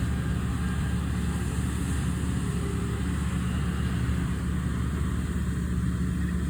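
Deutz D 4506 S tractor's air-cooled three-cylinder F3L912 diesel engine running steadily at an even speed.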